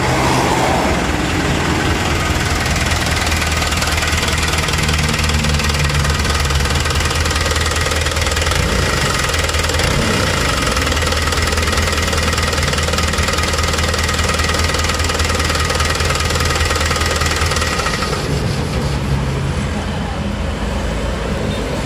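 Hino Dutro truck's diesel engine idling with an uneven, knocking 'jeng jeng jeng' beat instead of running smoothly. It is the engine of a truck that lacks power even though its injection-pump plungers are turned all the way up.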